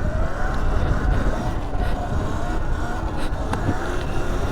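Sur Ron Light Bee X electric dirt bike being ridden: the motor's faint whine wavers up and down with the throttle over a heavy low rumble of wind and tyres, with a couple of light knocks past the middle.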